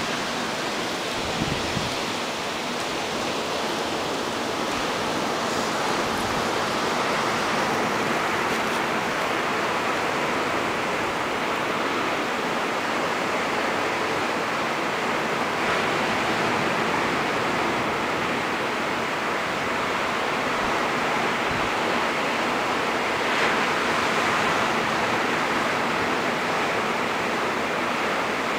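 A steady, even rushing hiss, with no separate sounds standing out.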